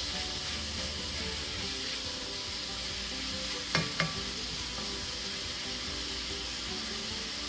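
Beef, onion and bell pepper frying in a cast-iron skillet: a steady sizzle as the mixture is stirred with a wooden spatula, which knocks against the pan twice just under four seconds in.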